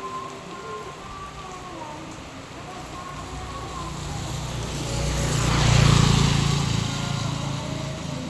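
A motor vehicle passes by through steady rain, growing louder to a peak about six seconds in and then fading away.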